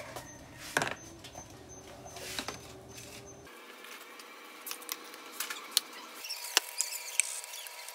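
Thin clear plastic food tubs and a tray being unstacked and set down on a stone countertop: light plastic clicks and scratchy taps, with a few sharper clicks.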